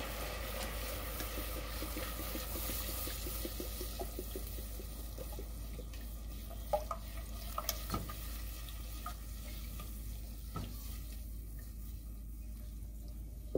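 Whipping cream being poured into a saucepan of hot melted butter and garlic and stirred with a silicone spatula: a soft steady sizzle with stirring, and a few light clicks of the spatula against the pot around the middle.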